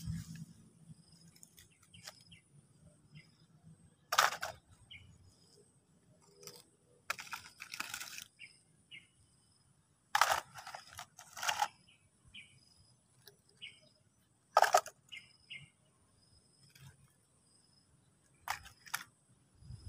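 Irregular knocks and clicks of plastic toys being handled and set down, about six sharper ones spread through, with faint rustling between them.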